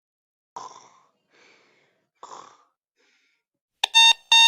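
Two noisy breaths, each followed by a fainter one, then an electronic alarm starts near the end with loud, steady-pitched beeps, about two to three a second.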